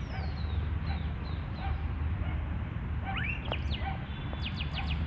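Small birds chirping: short falling chirps at first, more calls about three seconds in, and a quick run of about five sharp notes near the end, over a steady low rumble.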